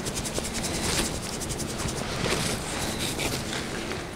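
A shaker of seasoned salt shaken over pork, a rapid high-pitched rattle in short runs, with crickets chirping in the background.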